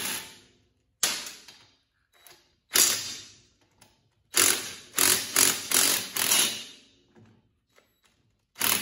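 Cordless power tool on a swivel socket run in several short bursts, backing out the 14 mm differential mounting bolts on an ATV rear end. The bursts come closer together in the second half.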